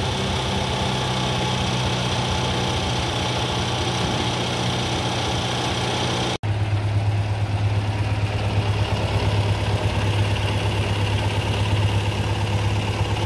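Massey Ferguson 135's four-cylinder gasoline engine idling steadily, running smooth now that its ignition points have been replaced and gapped after it had no spark. After a brief break about six seconds in, the engine is heard closer, with a stronger low hum that pulses evenly.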